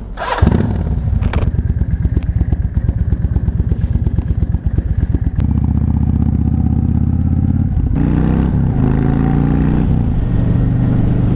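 Yamaha XVS650 bobber's air-cooled V-twin catching with a sudden loud burst about half a second in, then idling with a pulsing chug. From about five seconds in it runs louder and steadier as the bike pulls away, its revs rising and falling through the gears.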